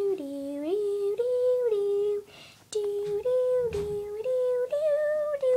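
A girl humming a simple made-up tune to herself while thinking, held notes stepping up and down, with a short pause about two seconds in.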